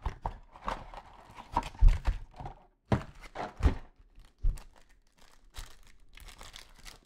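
Trading-card pack wrappers crinkling and tearing as packs are opened and cards handled, with a few soft thumps.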